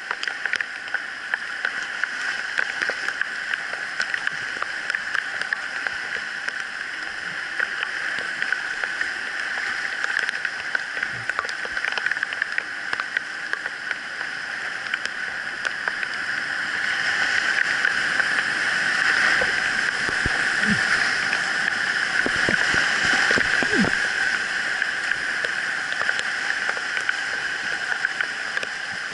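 Swollen whitewater river rushing steadily, heard from a kayak riding through the rapids, with water gurgling and splashing close by. It grows louder a little past the middle, then eases off near the end.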